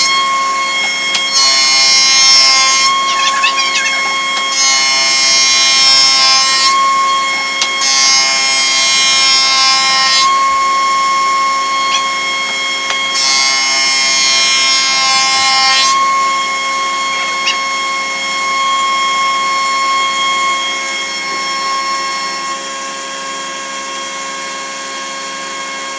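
Woodworking jointer-planer running with a steady whine while a board is pushed over the spinning cutterhead. Each pass gives a loud rush of planing noise, five passes in the first 16 seconds or so. After that the machine runs on without cutting.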